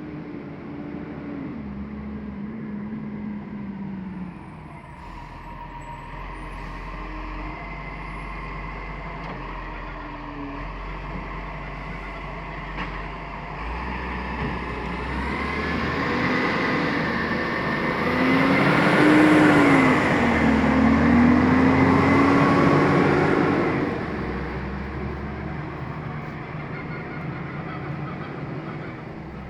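Garbage truck engine running, its pitch rising and falling as it revs. It grows louder about halfway through, is loudest for several seconds two-thirds of the way in, then drops back to a steadier run.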